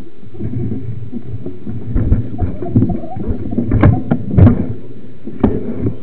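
Rumble from a camera riding on a mountain bike over a rough dirt trail, with irregular knocks and rattles as it jolts, the loudest about four seconds in.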